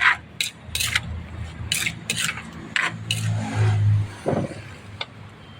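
Irregular short scraping and clinking of utensils against a dish, about a dozen quick scrapes. A low hum swells briefly about three seconds in.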